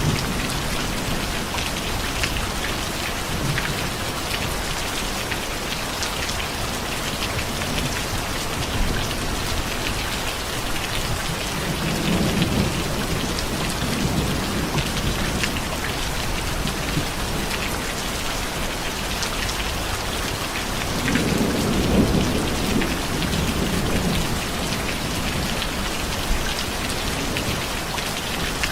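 Steady rain falling on a surface, with low thunder rumbling twice, once near the middle and again, louder, about three-quarters through.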